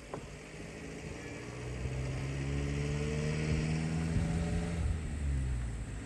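A motor vehicle's engine passing, its note rising slowly in pitch as it grows louder over the first few seconds, then fading about five seconds in.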